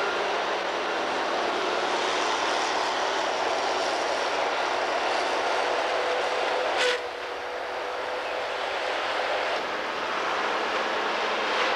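Heavy diesel engine of a wheeled forestry machine running steadily under work. About seven seconds in the sound cuts off abruptly with a click and resumes a little quieter, with a steadier tone.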